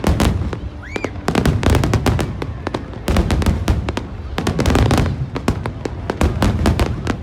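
Fireworks display: a dense barrage of firework bangs and crackles, several a second, with a short rising whistle about a second in.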